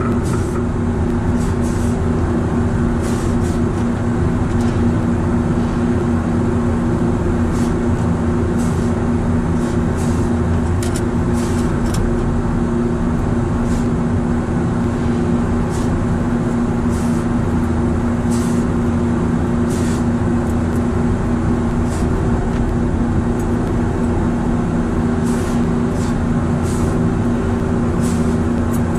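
Steady hum of running commercial refrigeration equipment, a compressor and condenser machinery with a constant low electrical drone. Scattered light clicks of small wiring parts being handled sound over it.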